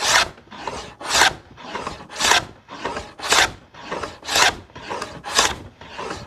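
Hand plane shaving the edge of a wooden board, one loud rasping cutting stroke about every second, with a fainter sound between each stroke.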